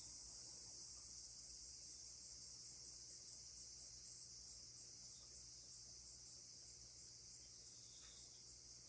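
Insects chirping faintly: a high, continuous trill that breaks into rapid pulses, about five a second, which slow and fade away.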